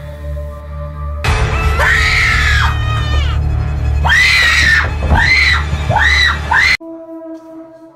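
A woman screaming in fright, starting suddenly about a second in. First come long high shrieks, then several short screams that rise and fall in pitch, and they cut off abruptly near the end. A low music drone plays underneath.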